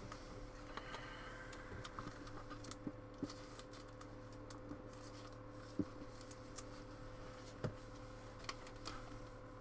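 Faint scattered clicks and rustles of trading cards and plastic card holders being handled, over a steady low hum.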